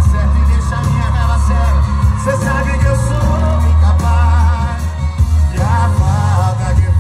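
A song with a singer and a heavy, deep bass line, played through a four-way trio speaker box with a JBL Tornado 3000 15-inch woofer, horn driver, tweeter and midrange speaker.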